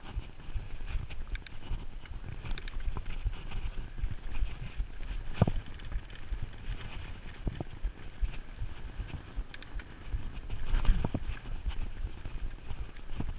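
Mountain bike riding down a rocky dirt trail, heard from a camera on the bike or rider: a steady low rumble of wind and tyres rolling over dirt and rock, with the bike rattling and knocking over bumps, sharpest about five and a half and eleven seconds in.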